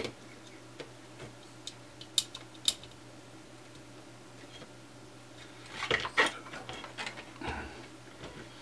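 Small screws and a screwdriver clicking and tapping as the rear panel of an LED PAR can is unscrewed, a few sharp ticks spread over the first three seconds, then a short cluster of louder clicks and rattles about six seconds in as the parts are handled.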